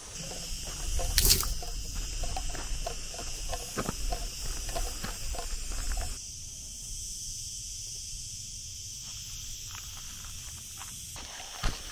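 Steady high-pitched chorus of insects in dry summer grassland. For about the first half it comes with footsteps on a dirt path and a low rumble, which stop about halfway through.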